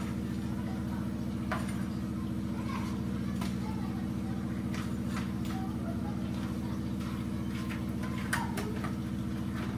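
A steady low mechanical hum, like a motor running, continues throughout. A few light clicks sound over it, as a metal spoon taps a plastic plate while fried fritters are moved onto it.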